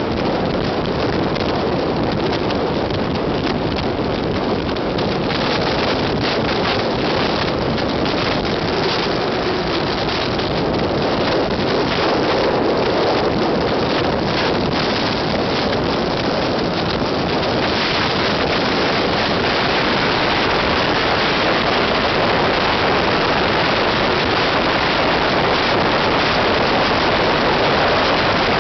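Steady tyre and wind noise of a car travelling at motorway speed. It grows a little louder and hissier a bit past halfway through.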